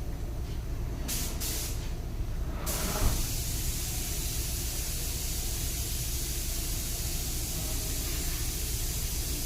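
Compressed-air paint spray gun hissing as clear coat goes on: two short bursts about a second in, then a continuous spray from about three seconds on, over a low steady hum.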